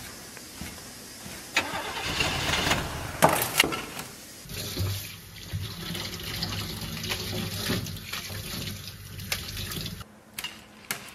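A cleaver knocking a few times on a wooden chopping board as tofu skin is sliced. Then, from about four and a half seconds in, a tap runs steadily into a stainless steel bowl while bok choy is rinsed by hand. It stops about ten seconds in.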